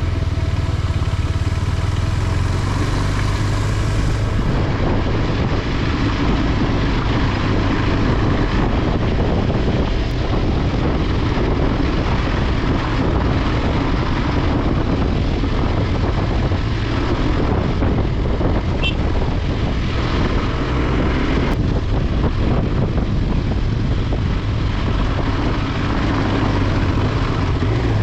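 Motorcycle engine running steadily while riding on an off-road trail, with a continuous low rumble and a steady rushing noise over it.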